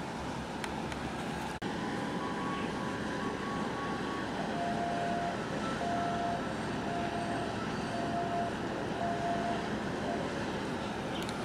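Steady rumble of the Wan Hai 302 container ship passing close, mixed with wind and harbour noise, with a momentary dropout about a second and a half in. From about a third of the way in, a short steady beep repeats about once a second.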